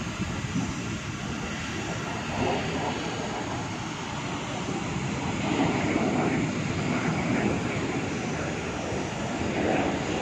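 Steady rumbling noise of a large construction site, with no single machine standing out.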